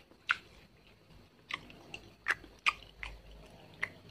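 Fried tempeh being chewed, with a few sharp crunches, about five in four seconds.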